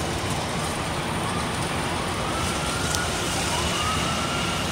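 An emergency-vehicle siren wailing faintly, its pitch rising and levelling off again about every two seconds, over a steady wash of wet-street traffic noise.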